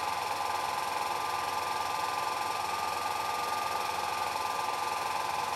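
Film projector running: a steady mechanical whir with an even hum near the middle of the range and no change throughout.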